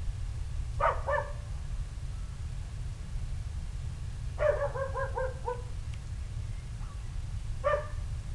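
An animal giving short yelping barks in three bursts: two notes about a second in, a run of about five notes falling slightly in pitch midway, and one short call near the end, over a steady low rumble.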